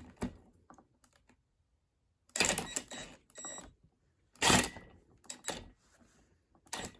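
Hammer tapping on a screwdriver to bend down a metal lock tab: a handful of sharp metallic clanks spread unevenly, the loudest about halfway through, one followed by a short metallic ring.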